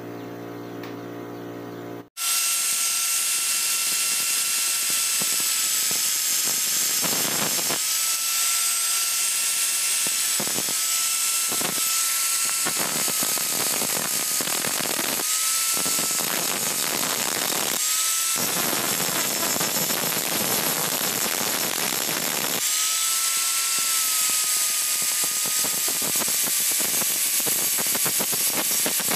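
Electric angle grinder with an abrasive disc grinding a steel blade: a high motor whine, broken again and again by the rough rasp of the disc biting into the steel, the whine dipping slightly under load. The first two seconds hold only a quieter low steady hum, before the grinder starts suddenly.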